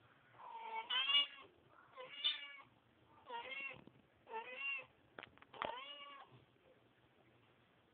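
Mother cat meowing five times, each call short and arching up then down in pitch, with a brief click just before the last call.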